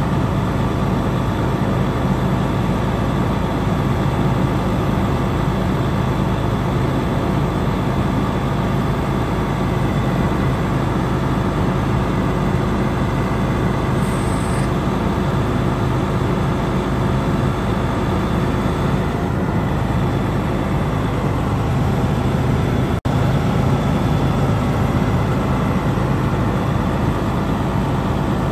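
Detroit Series 60 six-cylinder diesel of a Freightliner Columbia truck running steadily as a truck-mounted Hiab knuckleboom crane is worked, with a steady drone. The sound cuts out for an instant about four-fifths of the way through.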